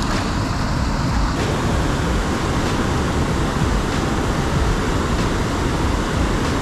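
Steady rushing of river water at a dam, with an uneven low rumble underneath.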